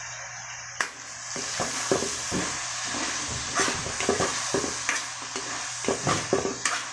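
Chicken pieces sizzling in a hot wok with a splash of soy sauce. From about a second in, a spatula stirs them, scraping and clacking irregularly against the pan.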